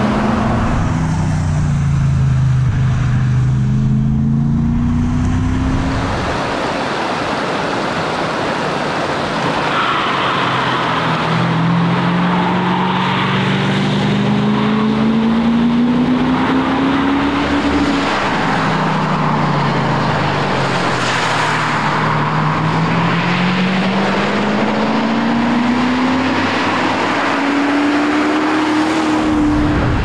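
BMW 540i (E34) 4.0-litre V8 engine pulling hard, its revs climbing steadily and falling back several times through the run, over tyre and road noise.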